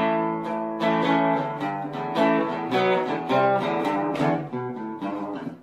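Acoustic guitar music: a run of picked notes and chords, each ringing out and fading, with a brief drop in loudness near the end.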